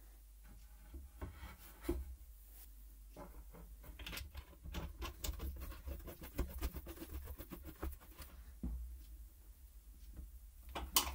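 Light wooden knocks and rubbing as wood pieces are handled and set in place, with a sharper click near the end.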